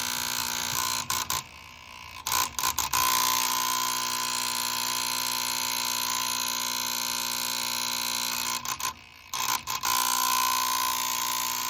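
Honeywell aquastat relay box on a furnace buzzing harshly. The buzz cuts out with clicks and restarts, twice in the first few seconds and again near the end, which is the sign of a failing relay; it was diagnosed as a bad relay box rather than a lack of power.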